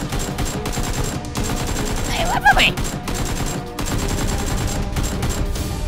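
Rapid automatic gunfire, a fast run of shots, over background music, with a person's short yell about halfway through.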